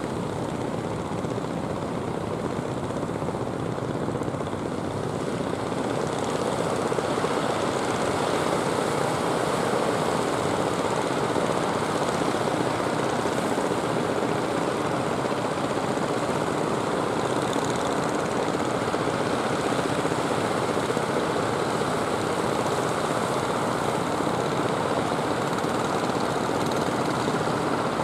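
Steady drone of many fishing-boat engines running together as the fleet comes in, mixed with surf washing on the shore. It grows a little louder a few seconds in.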